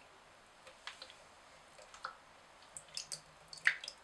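Liquid pouring from a carton into a plastic measuring jug: scattered small clicks and splashes, with the sharpest click near the end.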